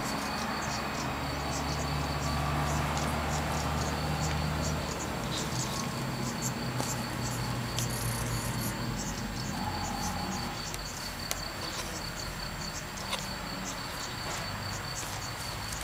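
High-pitched insect chirping, a fast, even pulse that keeps up steadily. A low hum underneath stops about five seconds in, and there are a few faint clicks.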